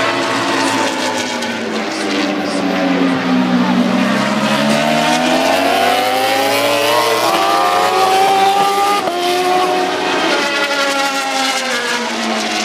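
Several racing motorcycle engines running together. Their pitch sinks, then climbs over several seconds as they rev, dips again and climbs once more near the end.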